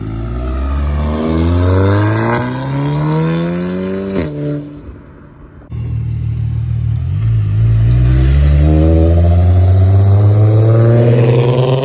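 An Audi TT accelerating away, its engine note climbing until a gear change about four seconds in, then fading. Then a Mk4 Volkswagen Golf pulls away, its engine rising in pitch through a gear change and climbing again.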